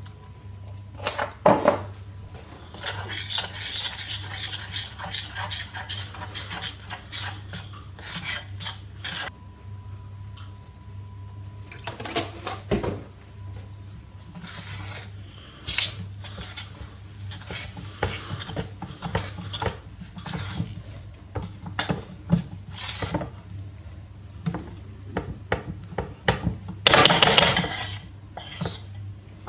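Utensil clinking and scraping in a mixing bowl as pizza dough is mixed, with a louder rustling burst near the end and a steady low hum underneath.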